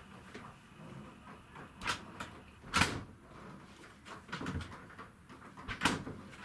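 Four short, sharp knocks and clunks inside a boat cabin, the loudest about three seconds in and another near the end, with a faint one between.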